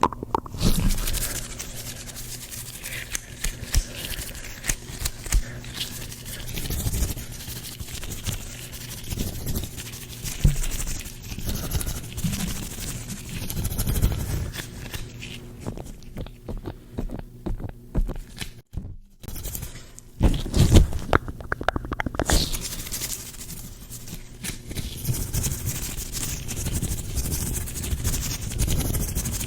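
Gloved hands rubbing and scraping together in a continuous run of fine crackling and rustling strokes, with a short pause about nineteen seconds in and louder strokes just after it.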